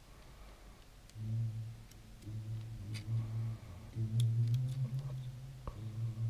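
A man humming in low, held notes that step up and down in pitch, with short breaks, starting about a second in. A few faint clicks of tweezers on the camcorder's small parts come through now and then.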